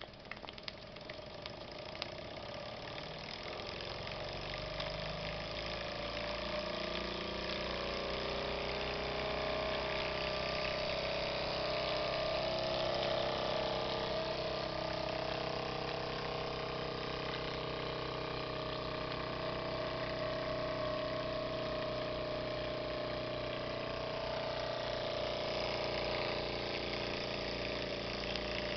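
Jensen Model #5 toy steam engine starting up under steam: its sound grows louder over the first five seconds or so, then it runs steadily at a fast, even beat.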